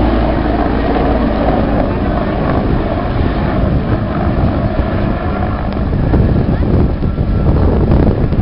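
Low-flying Mi-24 attack helicopters passing along the river, their rotors and turbine engines making a steady, loud noise that eases slightly in the middle and grows louder again near the end.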